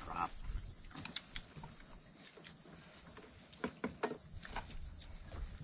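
Dense, steady chorus of chirping insects, high-pitched and pulsing rapidly, with a few faint clicks underneath.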